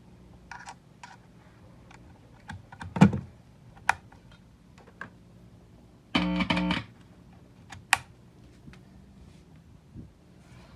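Scattered light clicks and knocks of gear and packaging being handled, with a louder knock about three seconds in. About six seconds in comes a short pitched buzz of about half a second, guitar-like.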